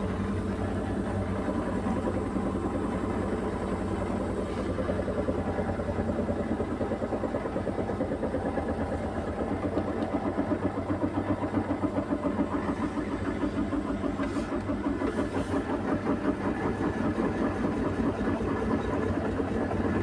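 Beko WMY81283LMB2 washing machine on its intermediate spin with an extremely unbalanced load. The drum runs with a steady mechanical drone that pulses rapidly in loudness, the pulsing heaviest about halfway through.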